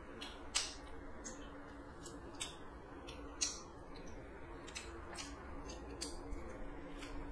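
Close-up eating sounds of someone chewing food taken by hand: sharp wet mouth clicks and lip smacks at uneven intervals, over a faint steady hum.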